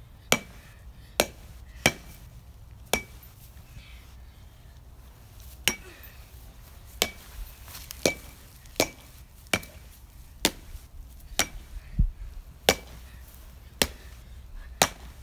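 A baseball bat striking a whole pumpkin over and over: about sixteen sharp hits, mostly less than a second apart, each with a short ring, with one pause of a couple of seconds early on. The pumpkin is too tough to smash.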